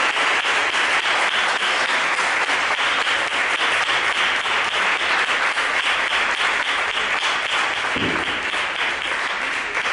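Audience applauding: many people clapping at once, a dense, steady patter of hand claps.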